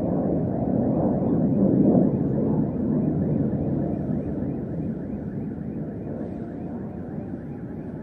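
F-16 fighter jet flying low overhead: a noisy rumble that swells to its loudest about two seconds in, then slowly fades as the jet moves away.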